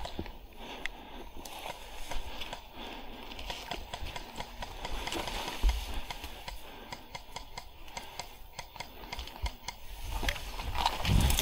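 Tall grass and bushes rustling and crackling against someone pushing through them, with many small, irregular crackles.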